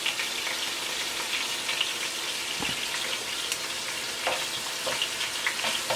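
Chicken pieces browning in hot canola oil in a pot: a steady sizzle with many small scattered pops.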